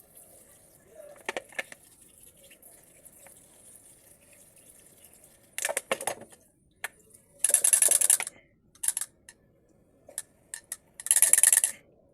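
Small metal transmission valve-body parts clinking and being handled, with two loud hissing bursts under a second long about halfway through and near the end.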